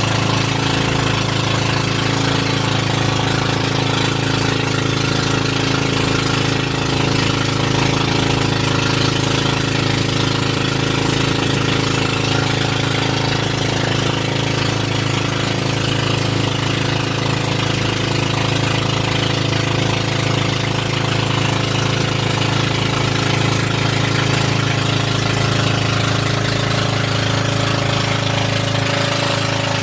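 Boat engine running steadily at constant speed, with no change in pitch or level.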